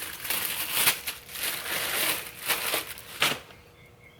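Plastic parts bag crinkling and rustling as it is handled, with a sharper rustle about three seconds in before it stops.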